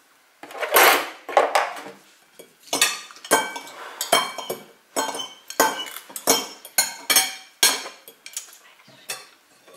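Metal forks clinking and scraping against ceramic plates and bowls of spaghetti: an irregular run of sharp clinks, about two or three a second, the loudest about a second in.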